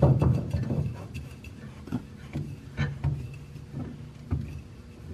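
Donaldson spin-on fuel filter being turned by hand onto its aluminum filter housing: quick rubbing strokes of the hand on the can, about three a second, for the first second, then scattered light clicks and taps as the hand regrips.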